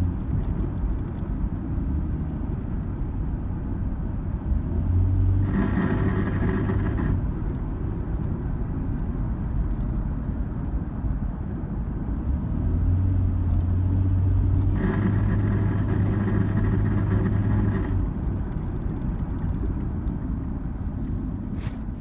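A 2002 Nissan Xterra's engine and road rumble heard from inside the cabin. Twice, a metallic, grinding-like buzz from under the passenger-side floor joins in: briefly about six seconds in, and again for about three seconds around fifteen seconds in. It comes up at about 2000 or 3000 RPM, and a mechanic put it down to the exhaust rattling.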